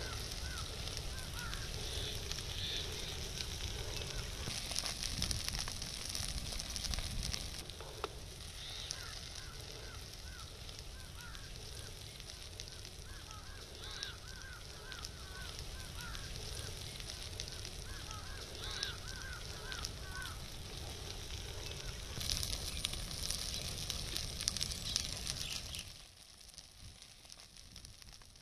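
Forest fire burning with a steady hiss and scattered crackling. Through the middle, short chirping calls repeat several times a second, and the sound drops away sharply near the end.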